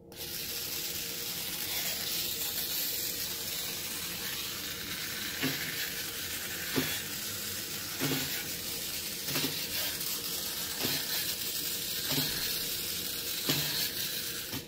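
Small electric motor and gears of a battery-powered toy car running with a steady hissing whirr. From about five seconds in, a soft click comes roughly every second and a half.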